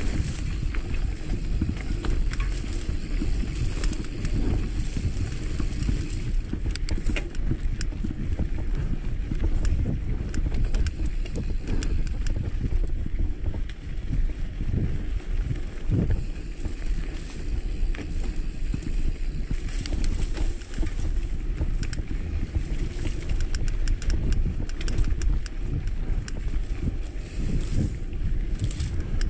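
Mountain bike rolling along a dirt singletrack: a steady low rumble of tyres and wind on the microphone, with frequent small clicks and rattles from the bike over the rough trail.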